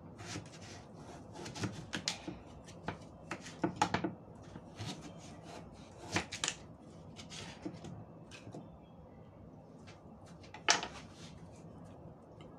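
Kitchen knife cutting through peeled taro and tapping on a wooden cutting board, with the cut pieces shifted by hand: irregular clicks and knocks, one sharper knock near the end.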